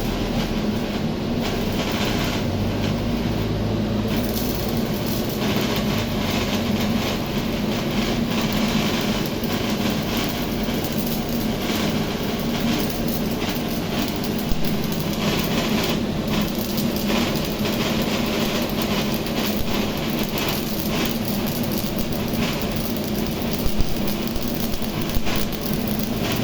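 Stick-welding arc from a Riland Arc 250GTS inverter welder crackling and sizzling steadily over a steady hum, with a few sharper pops about halfway through and near the end.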